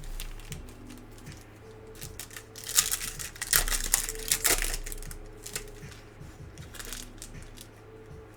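Trading cards being handled and sorted on a table: a run of light clicks and taps, with a louder rustling, sliding burst about three seconds in.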